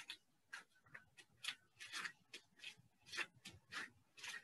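Faint, short rustling crinkles, two or three a second and unevenly spaced, from disposable plastic gloves rubbing as hands turn a ball of cookie dough and push its sides under.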